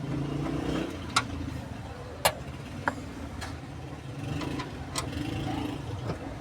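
Screws being taken out of a car's dashboard panel: scattered sharp clicks and knocks of the tool and screws against the plastic trim, with a low hum that swells twice for about a second.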